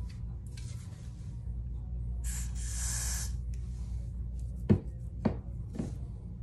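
A short hiss about two seconds in, lasting about a second, then three sharp clicks about half a second apart, over a steady low hum.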